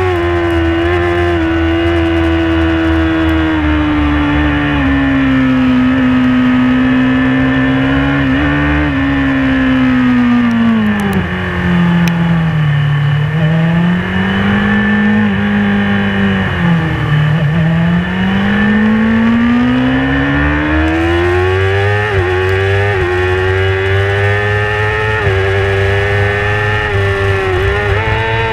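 Onboard sound of a Yamaha R6's inline-four engine running at high revs under race load, dropping twice in the middle as the rider slows for a long bend, then climbing steadily back up the rev range on the exit.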